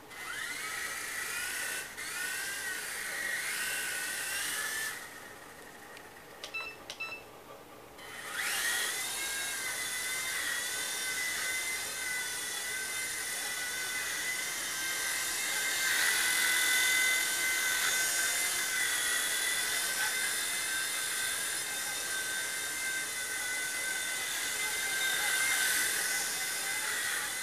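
Small electric motor and rotor of a V911 micro RC helicopter, fitted with heavier CNC aluminium parts, spinning up to a high whine. It cuts out for about three seconds with a few faint clicks, then spins up again and runs steadily with small shifts in pitch. The owner thinks the little motor is struggling to pull the extra weight.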